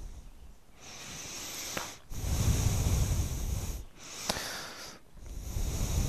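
A motorcyclist breathing close to a microphone inside his helmet: two breaths, each a softer swell of breath noise followed by a louder one, with short pauses between.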